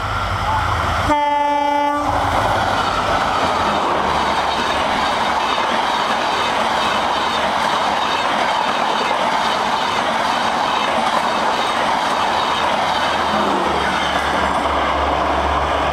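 WDP-4D diesel locomotive sounding a single horn blast of about a second as it approaches, then the double-decker express passing close at speed with a steady rush of wheels on rails.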